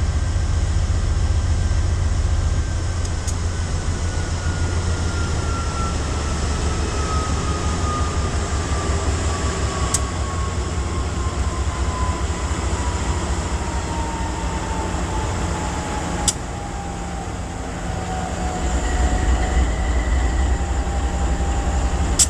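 GE AC44i locomotive's 16-cylinder diesel engine running with a deep throb. A whine over it falls slowly in pitch over most of the stretch, then holds steady. A few sharp clicks are heard.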